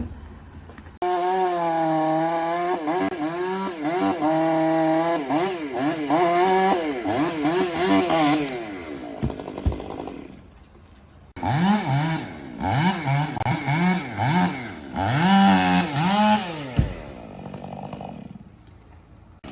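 Chainsaw run at high throttle, its pitch dipping and recovering as it works through wood, then falling off to a lull. It comes back with a string of quick throttle revs and drops to a low idle near the end.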